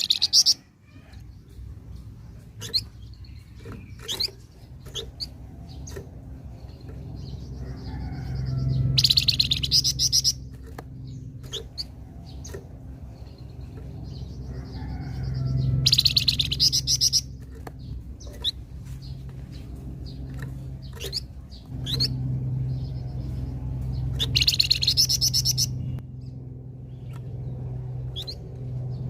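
A flamboyan songbird singing: loud, rapid, buzzy trilling phrases about every seven seconds (three in all), with short chirps and calls between them, over a low steady hum.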